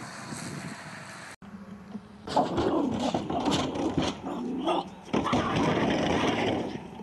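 Wind noise on the microphone for about a second and a half, then a small dog barking and growling in a string of short yaps, mixed with knocks from the plastic trash can it jumps at and tips over.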